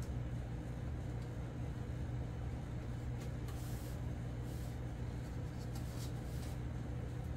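Steady low hum in a small room, with a few faint scrapes and taps of a small Allen wrench being worked at the elevator servo screw inside a foam model glider's fuselage.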